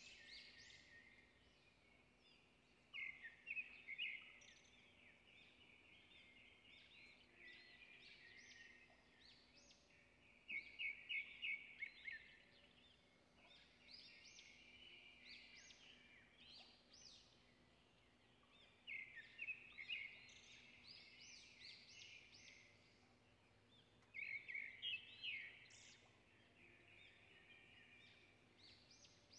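Faint birdsong: small birds chirping in several bursts of quick, repeated trilling notes with short gaps between them, over a faint low hum.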